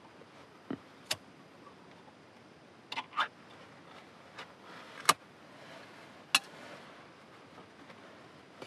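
About six sharp clicks and light metallic taps from small objects being handled by hand, the loudest about five and six and a half seconds in, over a faint steady hiss.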